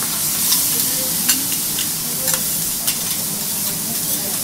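Bean sprouts, greens and wagyu steak sizzling on a steel teppanyaki griddle as they are stir-fried. A metal spatula clicks sharply against the plate several times.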